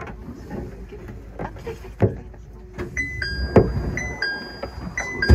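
Electronic two-note falling chime repeating three times about a second apart, starting about three seconds in: the cable car's door-closing chime at a station stop. A few knocks and clicks come before it.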